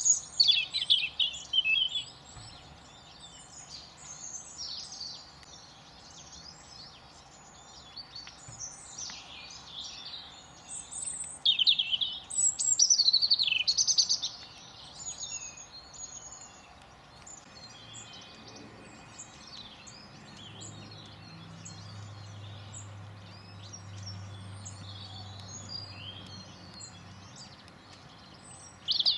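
Small songbirds singing and chirping in quick high phrases, with the loudest bursts of song near the start and around twelve seconds in. A faint low hum runs under the second half.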